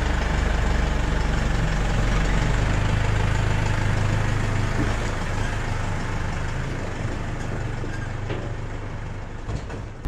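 Case Farmall 75 C tractor's diesel engine running steadily at low revs, growing slightly quieter in the second half.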